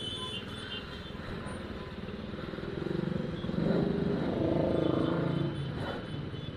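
Bajaj Pulsar NS200's single-cylinder engine running as the motorcycle creeps through slow city traffic, with other vehicle engines around it. The engine noise swells louder for about three seconds in the middle, then eases off.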